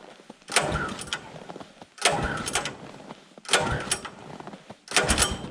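Small gasoline engine of a Woodland Mills HM126 bandsaw sawmill being pull-started cold at full choke in about −21 °C. Four pulls come about a second and a half apart, each turning the engine over briefly without it catching.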